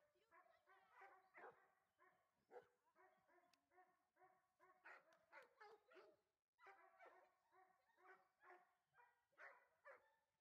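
A dog barking over and over, faint, with short barks coming two or three a second and a brief pause about six and a half seconds in.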